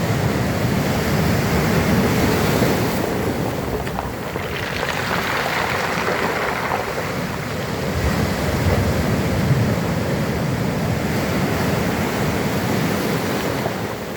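Sea waves surging in and breaking into foam, a continuous wash of surf that swells and ebbs, with a hissier surge about five seconds in.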